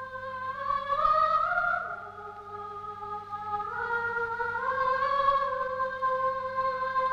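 Slow, melodic soundtrack music of long held tones moving together in two or three parallel lines, with no beat or percussion, over a faint steady low hum.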